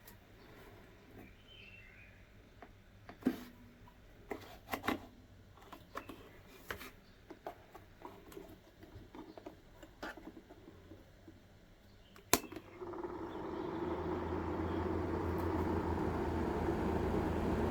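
Scattered clicks and knocks of handling, then a sharp click about twelve seconds in, after which a small battery-powered fan motor starts and runs with a steady hum that builds over a second or so.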